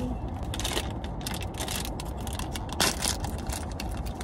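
Pink foil wrapper of a Sonny Angel blind-box figure crinkling and crackling as it is torn open by hand, many quick crackles in a row.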